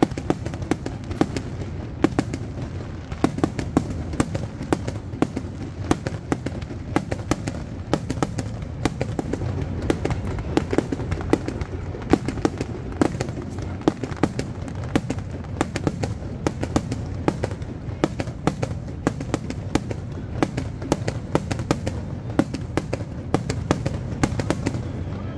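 Aerial fireworks shells bursting in a dense, continuous barrage, several sharp reports a second over a steady low rumble.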